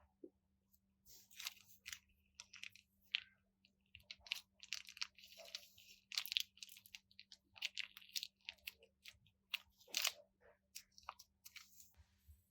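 Crunchy slime being handled, giving irregular crackling and crunching.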